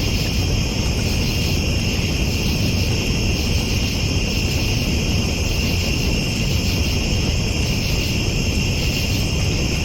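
Campfire burning with a steady low rush, over a constant high-pitched chirring from night insects.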